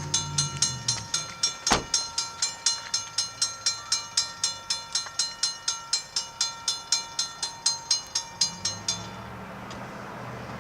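Railroad crossing bell ringing rapidly, about four strikes a second, with a sharp click about two seconds in. The bell stops near the end, leaving a low steady rumble.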